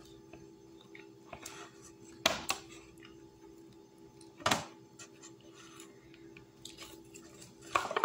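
An aluminium foil takeout tray being handled and its foil-lined lid peeled off: two sharp clacks a couple of seconds apart, with fainter taps and crinkling in between, over a steady low hum.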